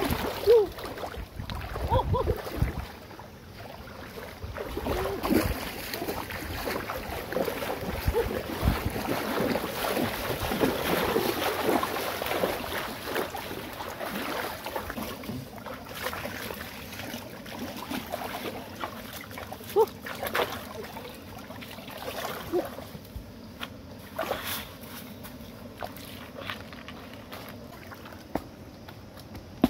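Shallow river water splashing and sloshing as people wade and feel by hand in the muddy bed for freshwater shells, over the steady rush of the stream.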